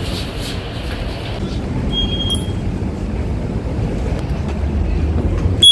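Steady low rumbling noise, with a short, high electronic beep about two seconds in and a louder beep right at the end.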